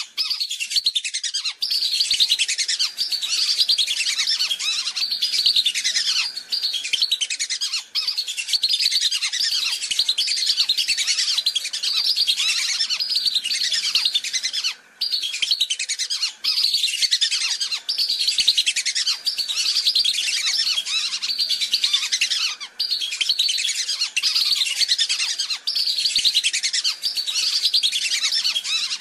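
A flock of whistling ducks (belibis) giving a dense, continuous chorus of high, thin whistled calls, broken by a few brief gaps. It is a lure recording, played to draw wild whistling ducks in.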